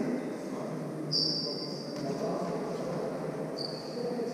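Indistinct voices echoing in a sports hall, with two short high-pitched steady tones, one about a second in and another near the end, each fading within a second.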